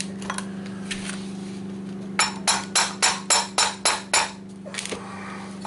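Hammer striking a steel punch set against the rusted crankshaft of a moped engine, about eight quick metallic blows, roughly four a second, starting about two seconds in, with a few lighter taps before and after: knocking the stuck crank and its seal out of the crankcase.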